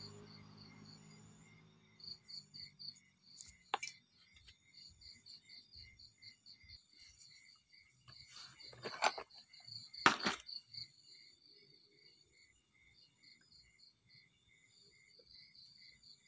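Insects chirping in a fast, even pulse. Over it come a few short knocks and rustles from the wooden pieces being handled, the loudest a sharp knock about ten seconds in.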